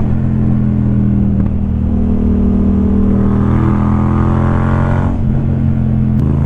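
Yamaha MT-07's parallel-twin engine running through a Black Widow carbon aftermarket exhaust while riding. The pitch climbs gradually from about two to three seconds in, drops back about five seconds in, then holds steady.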